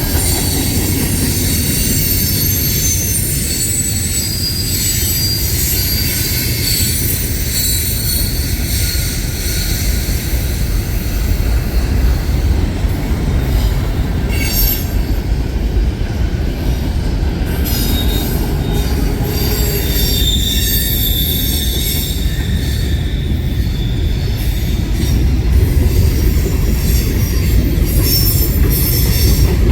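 Train rolling past close by: a steady heavy rumble of cars on the rails, with thin high-pitched wheel squeals over the top and scattered sharp clicks in the second half.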